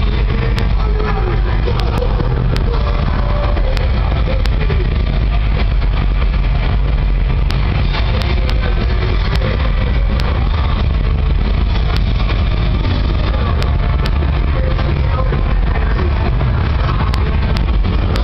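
Amplified live band music from an outdoor festival stage's PA, picked up as a loud, muddy, continuous rumble dominated by heavy bass.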